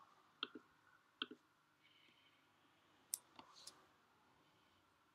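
Faint computer mouse clicks: a quick pair about half a second in, another pair just after a second, and a few more around three seconds in.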